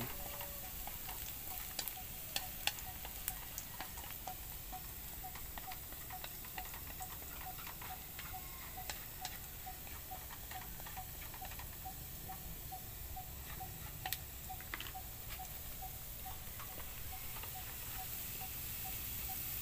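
Garlic sizzling gently in oil in a wok on a portable gas stove as it turns golden, stirred with chopsticks that click against the pan now and then. A faint, regular ticking runs underneath, over a low rumble of wind.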